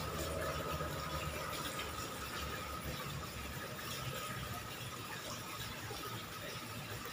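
Tap water pouring into a plastic bucket, a steady splashing hiss, with a faint high steady whine that fades in the second half.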